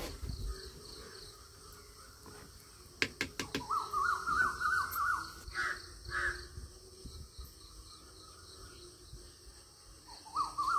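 Crows cawing, two harsh caws about six seconds in, among other birds' repeated rising calls and faint chirping, with a few sharp knocks about three seconds in.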